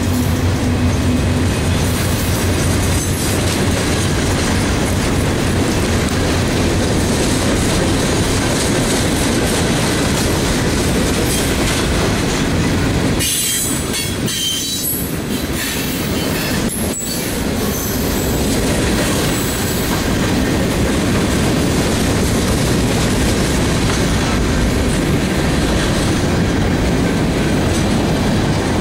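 Freight train cars rolling past at close range: a steady rumble of steel wheels on rail with clickety-clack over the rail joints and some high wheel squeal around the middle.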